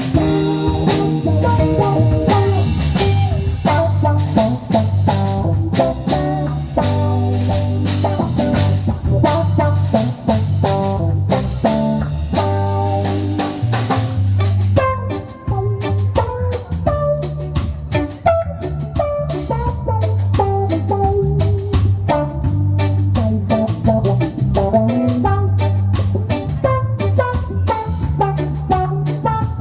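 Live band playing an instrumental break with no vocals: guitar lines over a steady bass guitar line and drum kit.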